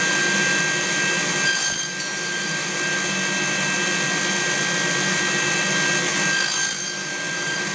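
Table saw and dust collector running steadily. Twice, about a second and a half in and again past six seconds, the sound swells briefly and turns shriller as the blade cuts through a small piece of wood.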